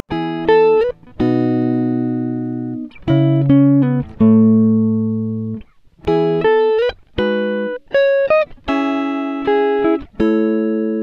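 Background music: a slow melody of plucked, guitar-like notes, each starting sharply and fading out, with short pauses between phrases.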